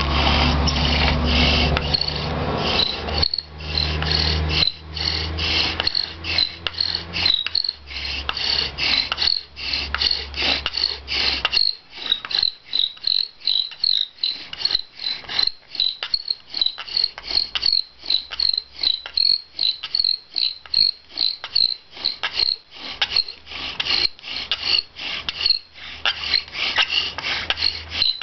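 Bow drill in use: a cedar spindle spun back and forth in a pine hearth board under a sycamore hand block, each bow stroke a grinding rasp with a high squeak, two to three strokes a second. A steady low hum runs under the first dozen seconds, then stops.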